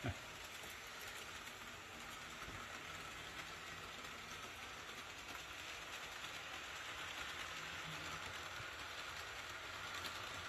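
HO-scale model train, an ACME Class 371 locomotive pulling a long rake of coaches on three-rail track, running with a faint steady rolling hiss of wheels and motor that grows slightly louder over the stretch. A brief click right at the start.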